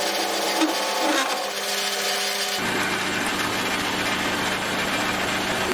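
A power tool motor running steadily with a cutting noise while chamfering the ends of small metal spacers; the sound gets fuller and deeper about two and a half seconds in.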